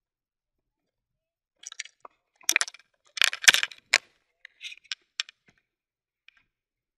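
Handling noise right at the microphone: a string of clicks, scrapes and rubs as the camera and its mount are moved about and fitted. It starts about a second and a half in, is loudest a little past the middle, and thins to a few single ticks near the end.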